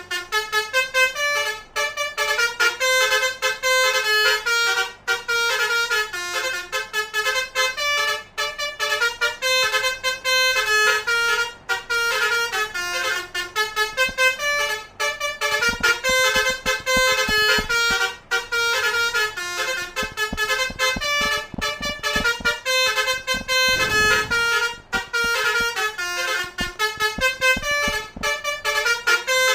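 A basuri 'telolet' multi-tone bus horn playing a fast tune: short horn notes stepping up and down one after another without a break. A scatter of low thumps comes through in the middle.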